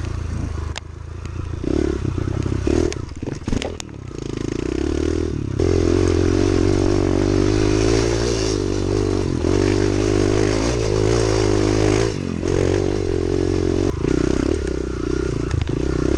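Kawasaki KLX110 pit bike's small single-cylinder four-stroke engine running under a rider. It is uneven, with clattering, for the first few seconds, then pulls steadily and louder from about four seconds in, with the pitch rising and falling with the throttle.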